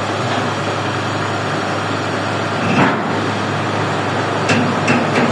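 XCMG XE370 excavator's diesel engine running steadily during unloading, with a short sharp sound about halfway and three more near the end.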